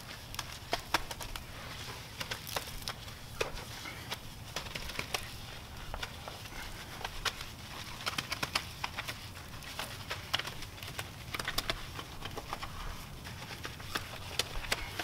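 Soapy wash mitt scrubbing a car's alloy wheel by hand: irregular wet crackling and clicking of foam and cloth rubbing against the spokes.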